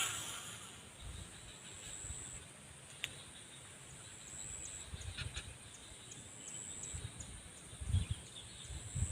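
Outdoor swamp background: insects keep up a steady high buzz with short louder pulses, over low rumbling and a few faint clicks.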